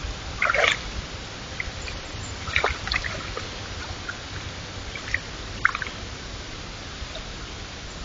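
White-tailed deer wading in a shallow woodland pond, making a few small splashes and drips of water, heard over the steady hiss of a trail camera's microphone.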